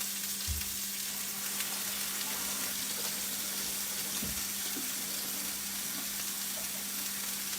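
Steady sizzling of food frying in olive oil on a flat-top griddle, with a couple of faint soft knocks.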